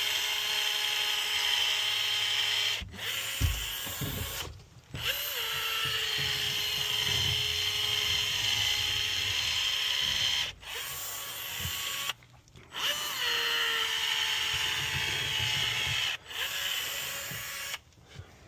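Cordless power caulking gun motor whining as it drives out FastFlash liquid flashing, in long runs of a few seconds with short stops between, each start rising quickly to a steady pitch.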